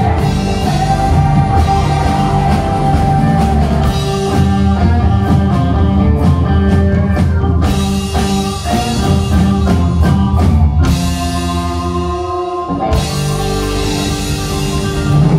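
Live rock band playing through the hall PA: drum kit, electric guitar, bass guitar and keyboard. About eleven seconds in, the drums and bass drop out for a couple of seconds, leaving held notes, then the full band comes back in.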